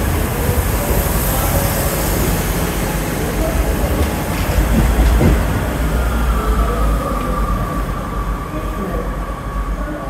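Four-car diesel multiple unit, a Class 158 and a Class 156, pulling away past the platform: underfloor diesel engines running with a deep rumble and wheels rolling over the rails. A steady high whine comes in about halfway through.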